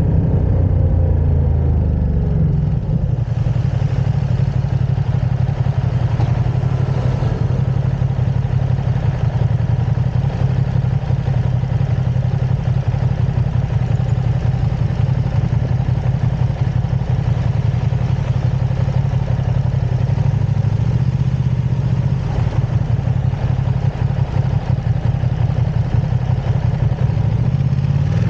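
Ducati Streetfighter V2's L-twin engine, its note falling as the bike slows in the first couple of seconds, then idling steadily, with the revs starting to rise again right at the end.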